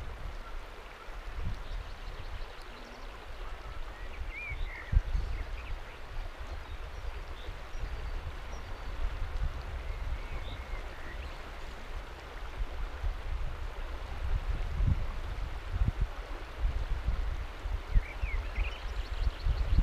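River water flowing steadily past a flat rock ledge, a continuous rushing wash, with an uneven low rumble of wind on the microphone. A few faint short chirps sound now and then.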